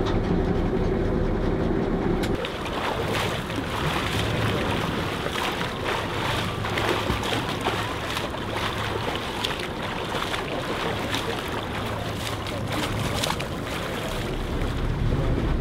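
Boat engine running with a steady low hum. About two and a half seconds in, this gives way to the open sea: water rushing and splashing along the hull, with short irregular splashes and wind on the microphone, the engine still humming faintly underneath.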